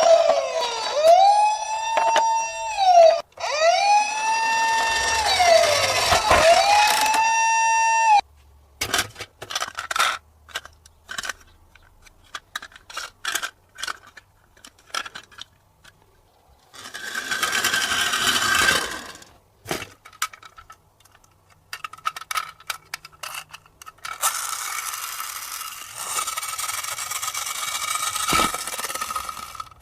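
Electronic toy police car siren wailing up and down, about one cycle every two seconds, stopping about eight seconds in. After it come scattered clicks and knocks, with two stretches of rushing noise, one short and one longer near the end.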